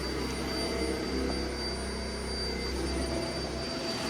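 Dyson vacuum cleaner running: a steady rushing noise with a thin high motor whine. A low hum under it drops out near the end.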